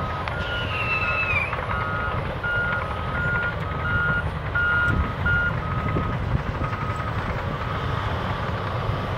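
Backup alarms on Caterpillar tracked bulldozers beeping about twice a second over the steady low rumble of their diesel engines. A short high squeal slides down in pitch about a second in.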